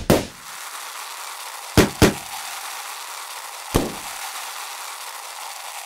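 Balloon-pop sound effects of paint-filled balloons bursting: four sharp pops, one just at the start, two close together about two seconds in and one near four seconds, over a steady hiss.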